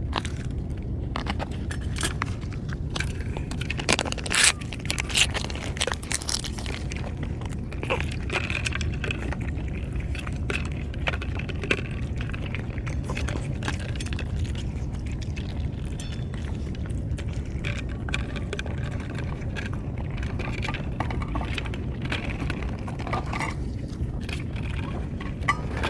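Scattered clicks and scrapes over a steady low rumble, with a louder clatter about four seconds in.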